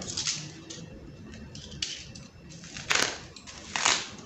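Black plastic wrapping crinkling and rustling as it is handled on a battery pack, in a few short bursts, with two sharp clicks about three seconds in. The loudest burst comes near the end.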